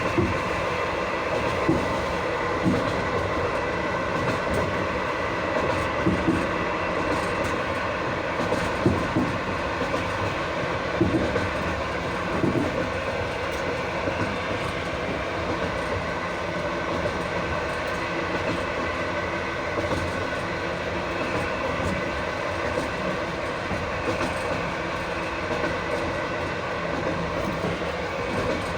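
Train wheels running on the rails under continuous braking on a long downgrade, heard from beneath the carriage through the toilet floor opening: a steady grinding of brake shoes on the wheels with several held ringing high tones, and scattered wheel knocks over rail joints, mostly in the first half.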